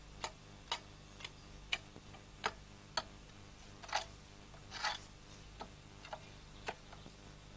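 A run of short, sharp clicks, about two a second at first and then more spaced out, as a spanner works the rusted holding-down nuts of an old stationary engine.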